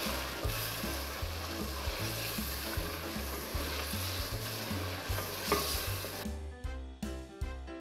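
Mutton sizzling and frying in a clay handi as a wooden spatula stirs it, the water cooked off so the meat is being roasted dry (bhuna stage). Background music with a steady bass beat runs underneath, and the sizzling cuts off suddenly about six seconds in, leaving only the music.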